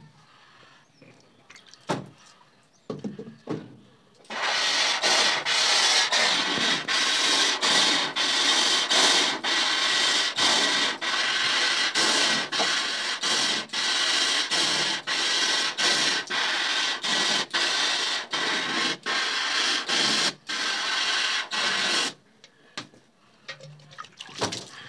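Water jet from a hose spray nozzle hissing against a screen-printing mesh, washing out the emulsion to clear the stencil. The spray starts about four seconds in, runs with many brief dips, and stops about three seconds before the end, after a few light handling knocks.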